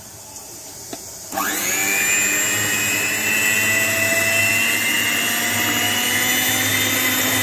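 A 260 W Scarlett EH-133 electric hand mixer switches on about a second in. Its motor whine rises briefly as it comes up to speed, then runs steadily while the dough hooks mix flour and water into dough.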